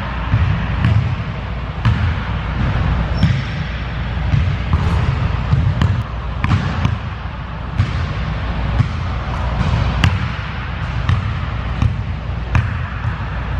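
Basketball bouncing on a hardwood gym floor: repeated, irregular dribbles and bounces, roughly one a second, over a steady low rumble.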